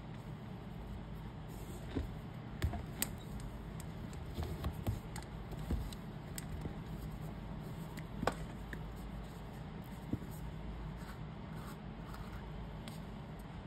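Hands unlacing a leather shoe: shoelaces drawn through the eyelets and leather flexing, making scattered small clicks and rustles over a steady low hum. The clicks die down after about ten seconds, when the shoe is set down and a tin is handled.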